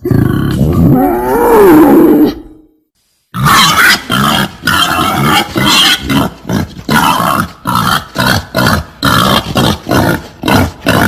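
Female wild boar calling: a loud call with wavering pitch lasting about two seconds, a brief break, then a fast run of short grunts, about two a second.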